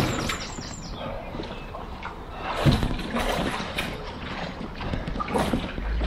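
Water splashing and sloshing irregularly as a swimmer moves alongside an inflatable kayak, with a louder splash about two and a half seconds in.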